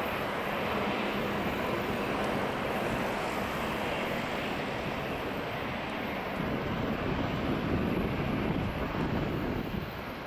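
Boeing 777-300ER's GE90-115B jet engines running at taxi power: a steady jet rumble and hiss that swells slightly about two-thirds through and fades out near the end.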